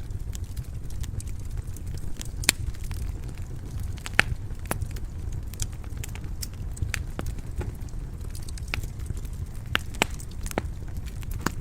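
Wood fire burning in a fireplace: a steady low rumble of flames with irregular sharp crackles and pops, the loudest about two and a half and four seconds in.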